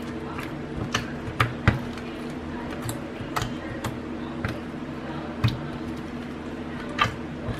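Clear slime mixed with red pigment powder being poked and squished by hand, giving irregular sticky clicks and pops. A steady low hum runs underneath.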